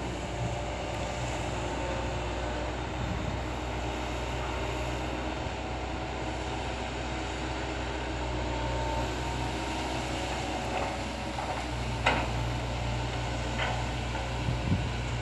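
Komatsu PC200 hydraulic excavator's diesel engine running steadily while it digs and moves soil, with a sharp knock about twelve seconds in.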